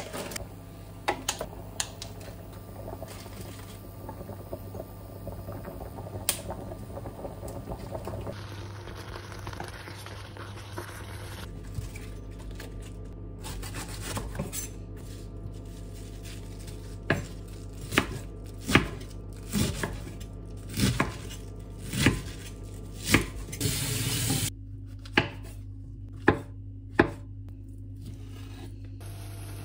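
Kitchen prep: scattered clinks and knocks of kitchenware being handled, then a chef's knife cutting through cabbage and raw chicken breast on a wooden cutting board, its strokes hitting the board about once a second in the second half.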